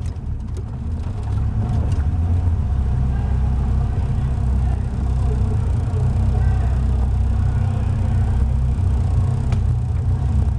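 Caterham Seven's Ford Sigma four-cylinder engine running steadily at low revs as the open-cockpit race car rolls slowly to a stop, with a few light clicks in the first couple of seconds.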